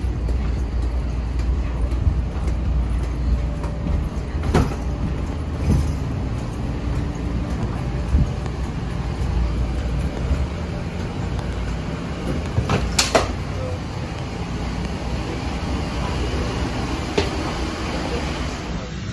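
Cabin ambience of a parked Boeing 737-700 airliner: a steady low hum with a few sharp knocks, the loudest about two-thirds of the way through, and a faint murmur of voices.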